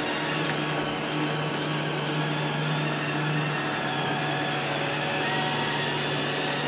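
iRobot Roomba 645 robot vacuum running steadily, a low hum under a steady whirring motor noise.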